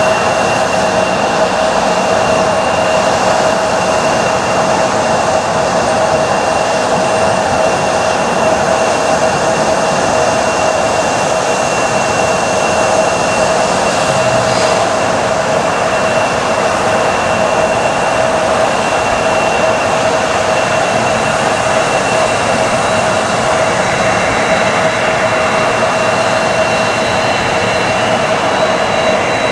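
Boeing 767 airliner's twin jet engines running at taxi power: a steady whine over rushing noise, with a further high tone joining near the end as the aircraft turns toward the listener.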